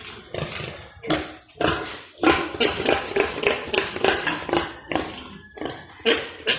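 Pigs in a pen making rapid, short, repeated grunts and feeding noises, several a second, mixed with tapping knocks.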